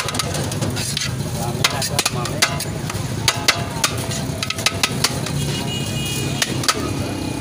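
Metal serving spoon scraping and clinking against the inside of a large aluminium cooking pot as biryani rice is scooped out, making many sharp irregular clicks. A steady low rumble of street traffic runs underneath.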